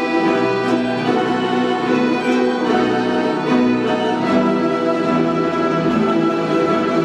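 Orchestra of Russian folk instruments (domras, balalaikas and bayans) playing a piece in full ensemble, with held chords under a moving melody.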